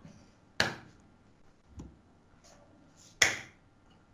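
Iron weight-plate discs clacking against each other as they are stacked: two sharp knocks, one just after the start and one near the end, with a fainter tap between.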